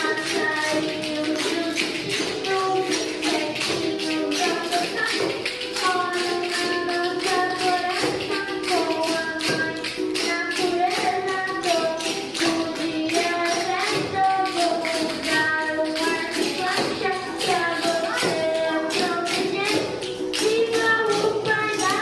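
Young voices singing a song in held, melodic notes over a steady tapped percussion beat.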